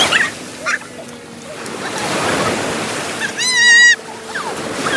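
Ocean surf washing onto a beach: a steady rushing wash that swells about two seconds in. About three and a half seconds in, a short, high, wavering shriek is the loudest sound. Brief voices are heard near the start.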